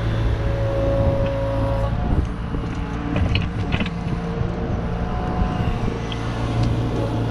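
Kubota KX71 mini excavator's diesel engine running under load, with a mid-pitched hydraulic whine that comes and goes as the boom and grading bucket move. A brief clatter about three seconds in as the bucket dumps soil into a trailer.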